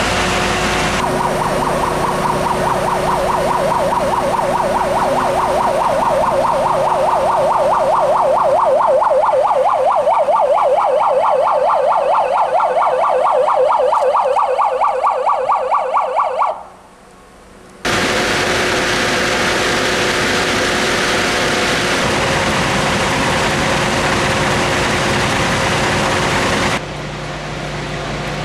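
An emergency vehicle's siren in a fast, even warble for about fifteen seconds, as a blue-lit vehicle approaches. It cuts off suddenly, and after a short gap a steady rushing noise follows.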